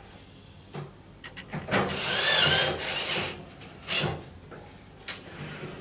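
Cordless drill-driver running, driving a screw into the metal top rail of a shower enclosure: one run of about a second and a half with a whine that bends in pitch, then a short burst about four seconds in. A few light knocks come before it.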